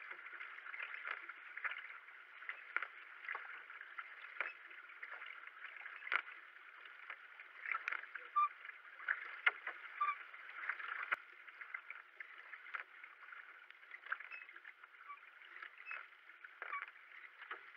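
Racing kayak under way: double-bladed paddle strokes splashing into the water about once or twice a second, over a steady wash of water along the hull.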